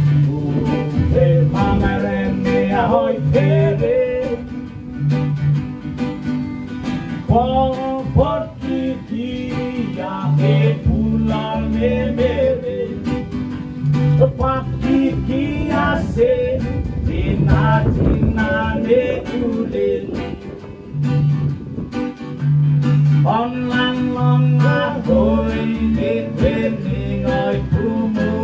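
Small live band playing a Rotuman song: acoustic guitar, electric guitar and keyboard with a steady bass line, and a singing voice over them.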